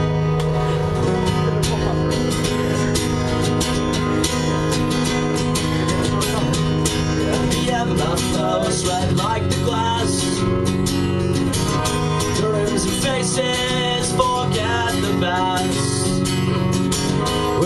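Two acoustic guitars strummed together in a steady rhythm, with a man singing over them from about halfway through.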